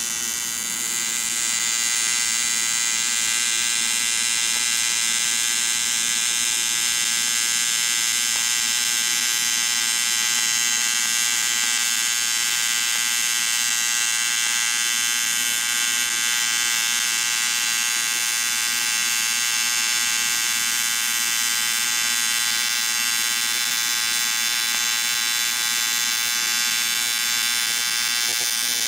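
AC TIG welding arc buzzing steadily as a crack in an aluminium engine crankcase is welded. The buzz holds an even pitch throughout and grows a little louder about a second in.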